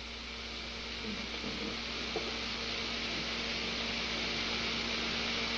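Foam spraying from an air-and-water foamer's hose nozzle: a steady hiss that grows gradually louder, over a steady low hum.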